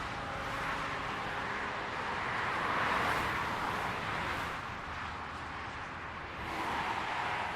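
Highway traffic: a steady rush of tyre and engine noise from passing cars, swelling as vehicles go by about three seconds in and again near the end.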